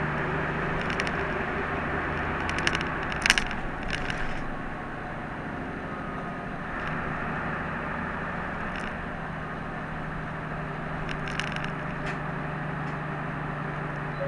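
Route bus heard from inside the cabin: a steady engine hum with road noise. A cluster of sharp clicks and rattles comes about three seconds in. The engine hum then drops away for a couple of seconds before coming back.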